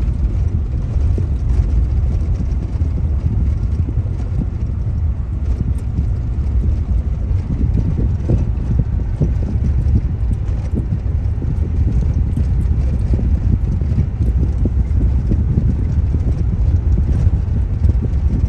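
Car driving, heard from inside the cabin: a steady low rumble of road and engine noise, with faint small knocks from the car going over the road surface.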